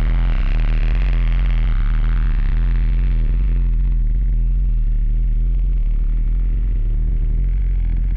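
Electronic drone soundtrack: a loud, steady deep hum with a hissy upper layer that thins out about halfway through.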